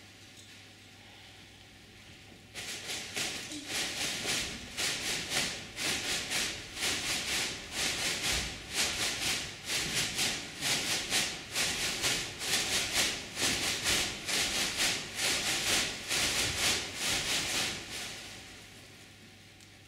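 Rhythmic hissing swishes from the ensemble of performers on stage, about two a second, starting a few seconds in and fading out near the end.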